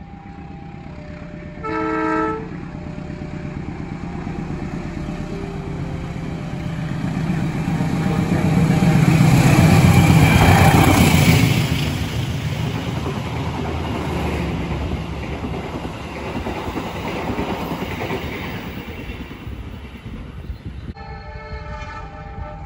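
A short train horn blast about two seconds in. Then a long-distance passenger train runs through the station at speed: its rumble and wheel clatter on the rails build to a peak midway and ease off as the coaches pass.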